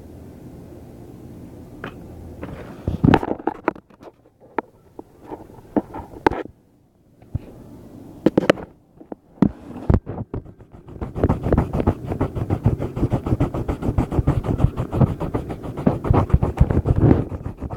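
Handling noise right on the microphone: scattered, irregular knocks and scrapes with quiet gaps, then a dense stretch of rapid rubbing and clicking that stops suddenly at the end.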